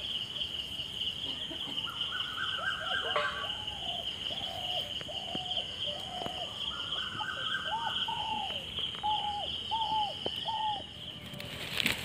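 Night insects, crickets, trilling steadily and high throughout. Through the middle, another animal gives a run of about a dozen short calls, roughly two a second.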